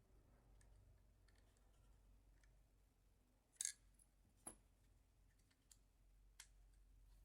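Small metal and plastic parts of a Tokyo Marui V10 Ultra Compact airsoft pistol being handled. Faint ticks, then two sharp clicks about halfway, under a second apart, and a couple of lighter clicks after.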